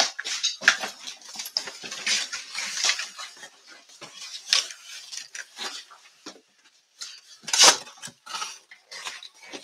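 Cardboard boxes and their packaged contents being unpacked by hand: irregular rustling, crinkling and light clattering, with a louder crackle about seven and a half seconds in.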